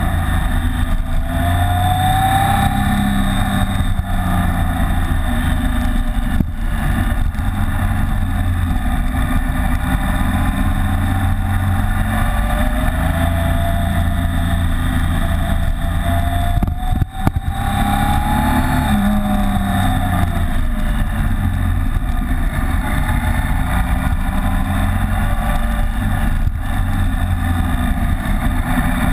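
BMW K75's three-cylinder engine running under way, its revs rising and falling several times through the bends, heard from a camera mounted on the motorcycle's windshield. The sound dips briefly about seventeen seconds in.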